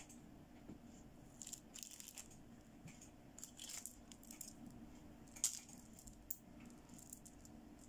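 Light clicks and taps of small plastic toy makeup pieces being handled and set down, with a sharper click about five and a half seconds in. Near the end, the plastic beads of a toy necklace click together as it is picked up.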